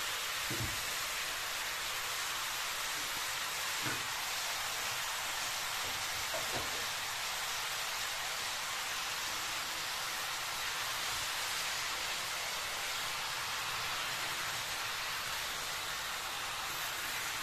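Vegetables sizzling steadily in hot oil in a wok while napa cabbage is stir-fried, with three faint knocks of a wooden spatula against the wok.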